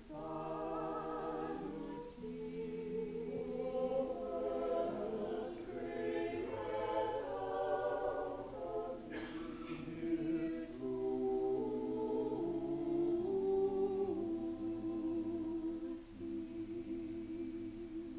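Choir singing, in long held chords that step slowly from one to the next.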